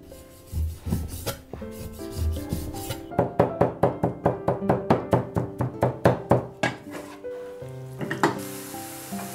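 Heavy cleaver chopping beef tenderloin on a wooden chopping board: a few single strokes, then a fast, even run of chops, about five or six a second, mincing the meat. Near the end the mince goes into a hot pan and starts to sizzle.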